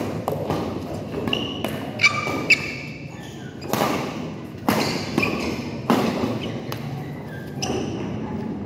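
Badminton rally: about six sharp racket strikes on the shuttlecock roughly a second apart, with short sneaker squeaks and footfalls on the court floor.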